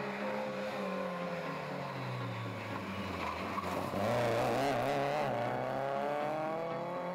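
Red Autobianchi A112 rally car's engine: the revs drop as it slows into a hairpin, then rise and waver as it accelerates out of the corner and away, louder from about four seconds in.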